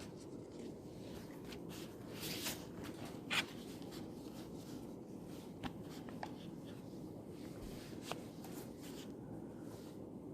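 Writing on paper: a few short scratching strokes, the loudest about three seconds in, with scattered light taps, over a steady low room hum.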